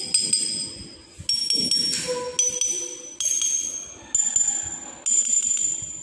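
Six taps on a row of small glass bottles holding coloured water at different levels, each one ringing clearly and dying away, the pitch stepping higher from one bottle to the next. Each bottle rings at its own pitch because of the level of water in it.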